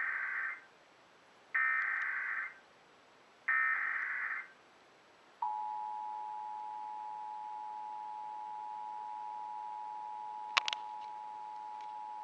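Emergency Alert System tones heralding a tornado warning. Three one-second screeches of the SAME digital data header come first, then about five seconds in the steady two-tone attention signal starts and holds, with a brief click a little past ten seconds.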